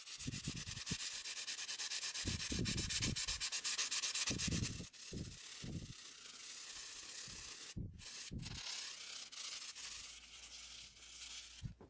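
Sandpaper rubbed fast back and forth by hand along a high-speed-steel chisel blade, a scratchy rasp. The strokes are louder for the first five seconds or so, then lighter, with a few soft low thuds.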